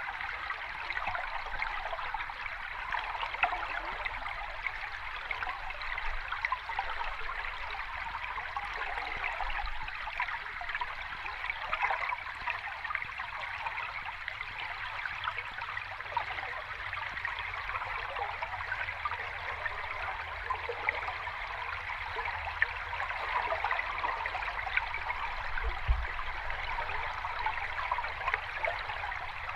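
Running water of a small cascade, a steady, even rush with fine splashing texture.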